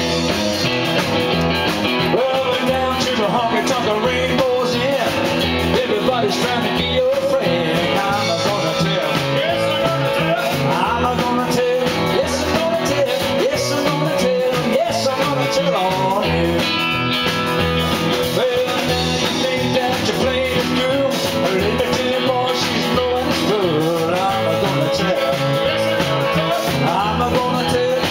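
Live rock and roll band playing, an electric guitar lead over electric bass guitar and a steady beat.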